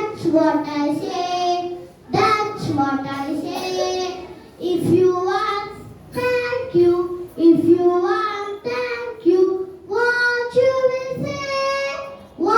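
A young child singing a simple song, in short phrases with held notes and brief breaths between them.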